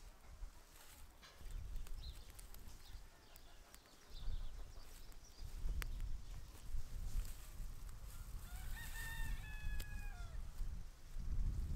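A rooster crowing: one drawn-out crow about two seconds long near the end, over a low rumbling noise that comes and goes.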